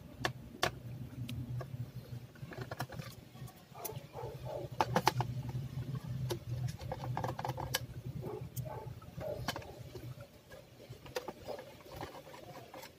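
Small screwdriver turning out little screws from an Acer laptop's plastic case: irregular light clicks, taps and scratches of the metal tip and screws against the plastic. A low steady hum runs underneath until about ten seconds in.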